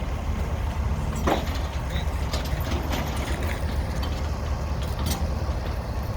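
Steady low vehicle rumble with scattered short clicks and knocks, and a brief squeal about a second in.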